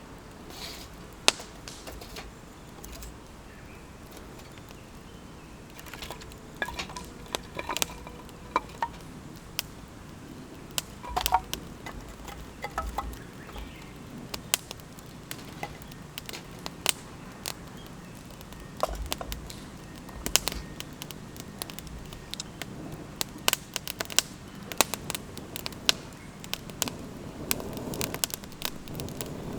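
Wood campfire crackling, with irregular sharp pops and snaps scattered all through.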